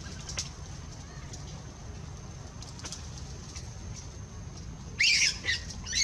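Short high-pitched animal calls, three quick wavering squeaks about five seconds in, over a steady low background rumble.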